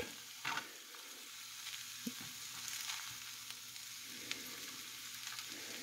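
Shredded pork sizzling faintly as it browns dry in a nonstick skillet, with occasional soft scrapes of a spatula stirring it.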